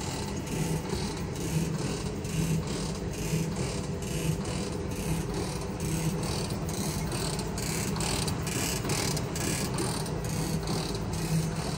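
Stanko 7A420 vertical slotting machine running, giving a steady mechanical beat of about three strokes every two seconds.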